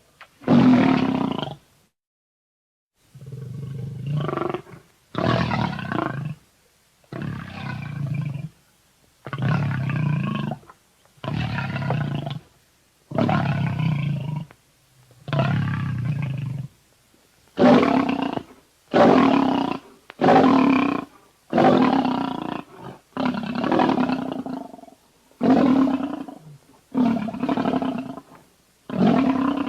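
Carnotaurus dinosaur roar sound effects: a string of about sixteen short, loud roars, each lasting a second or so, separated by brief pauses, coming faster in the second half.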